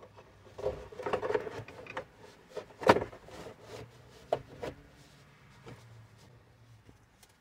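Plastic dash trim covers being handled and fitted around a steering column: rattling and rubbing about a second in, one sharp knock near three seconds, then a couple of lighter clicks.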